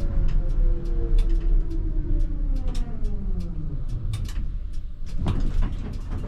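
ČKD Tatra T3R tram's traction drive whining, its pitch falling steadily as the tram brakes to a halt, over a running rumble and frequent rattling clicks. The whine dies away about four and a half seconds in.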